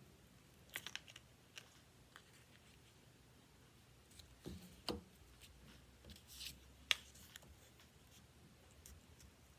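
Faint handling of paper cut-outs and a glue stick on a tabletop: a few scattered short taps and clicks with brief paper rustles.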